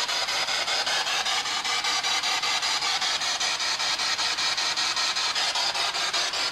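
Spirit box (sweeping radio scanner) running through the bands: a steady hiss of white-noise static chopped into rapid, evenly spaced clicks many times a second as it steps from frequency to frequency.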